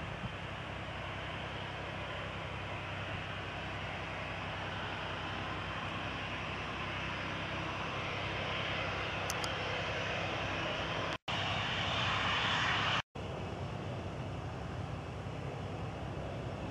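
Boeing 737-800's CFM56-7B jet engines running as the airliner taxis to the runway: a steady jet engine noise that grows louder past the middle. The sound drops out briefly twice, a couple of seconds apart, in the later part.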